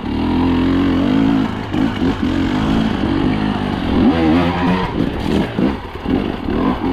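KTM two-stroke dirt bike engine revving up and down as it is ridden, its note rising and falling repeatedly.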